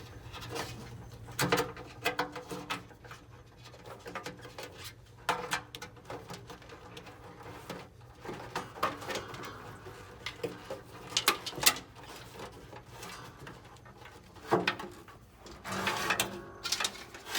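Hands working a wiring harness through a grommet hole in a car body: irregular rustling of the wire bundle with scattered clicks and small knocks, busier near the end.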